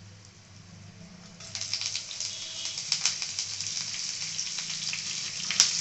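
Hot oil sizzling and crackling in a kadai with a tempering of lentils, mustard seeds and curry leaves. The sizzle rises sharply about a second and a half in as chopped green chillies go into the hot oil. There is one sharp click near the end.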